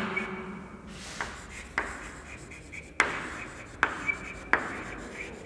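Chalk writing on a blackboard: scratchy strokes, each starting with a sharp tap as the chalk meets the board, about six times.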